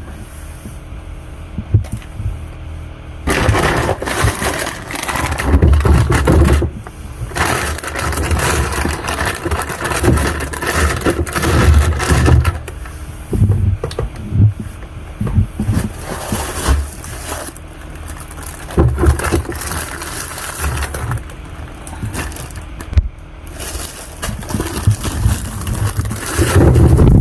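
Plastic grocery bags and packaging crinkling and rustling in irregular bursts while groceries are handled and packed away, with low knocks of items being set down.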